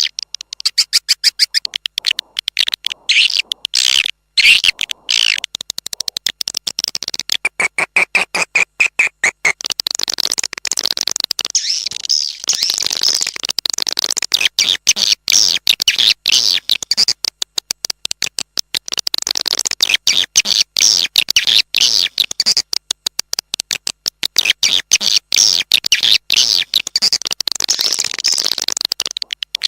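Swiftlet calls from an external lure track for swiftlet farming: a dense, continuous chorus of rapid high twittering chirps and clicks. A short, steady buzzing trill sounds about seven to nine seconds in.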